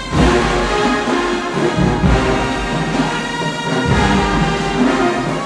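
Marching band playing, with brass holding chords over heavy drum hits.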